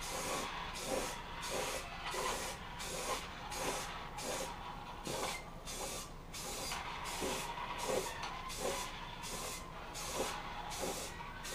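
Aerosol spray can of primer hissing in short repeated bursts, about two a second, as a second coat is sprayed on.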